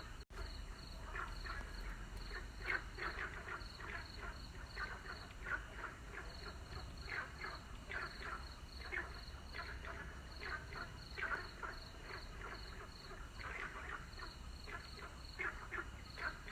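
A chorus of frogs calling, many short croaking calls overlapping in irregular clusters, with a fast, even high-pitched pulsing above them. The sound drops out for an instant just after the start.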